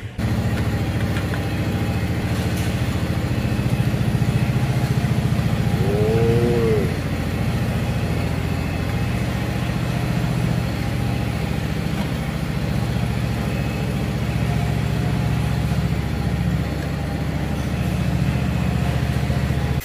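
A motor-driven machine running steadily with a fine, even pulse, cutting off at the very end. A short rising-and-falling tone is heard about six seconds in.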